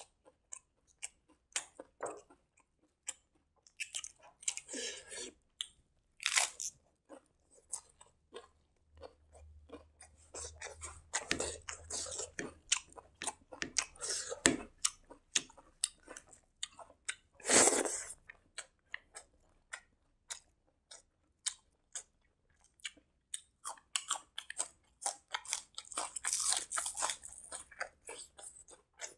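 Close-miked chewing and biting of crunchy food, a long run of short sharp crunches and wet mouth clicks, with a few louder crunches.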